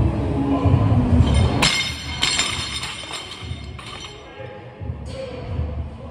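Olympic barbell loaded with rubber bumper plates dropped from overhead onto the lifting platform: a heavy thud about a second and a half in, a second impact as it bounces half a second later, then a few smaller knocks with the plates clinking on the sleeves. Background music with a steady beat plays throughout.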